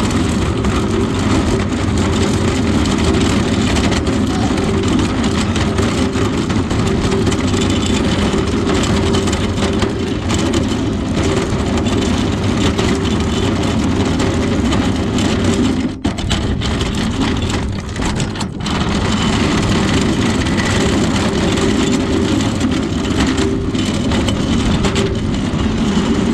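Steady engine and road noise of a moving vehicle heard from inside, with a brief drop in loudness about two-thirds of the way through.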